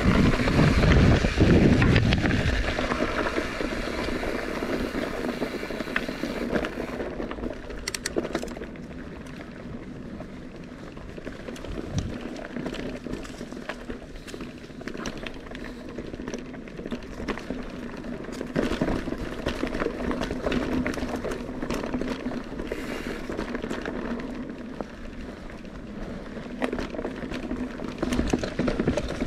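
Mountain bike riding over a trail: tyres rolling and crackling over dirt and rock, with wind buffeting the microphone, heaviest in the first couple of seconds.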